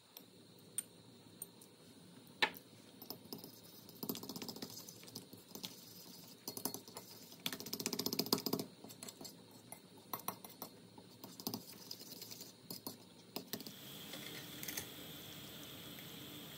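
Metal fork scraping and clinking against a glass and a ceramic plate as grated pecorino is worked into a raw egg, with a quick run of clinks about eight seconds in as the mixture is beaten. Near the end the clinks give way to a steady hiss of water boiling in a pot.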